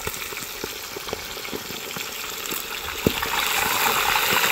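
Sliced potatoes frying in hot oil: a steady sizzle full of small crackles, growing louder about three seconds in.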